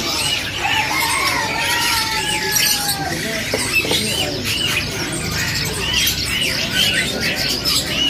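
Many caged songbirds chirping and calling at once: a dense, overlapping chatter of short arched chirps repeated over and over, with a longer, slowly falling note between about one and three seconds in.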